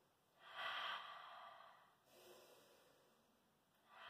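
A woman taking slow, deep breaths in a held stretch: one long breath about half a second in, lasting around a second and a half, then another beginning near the end.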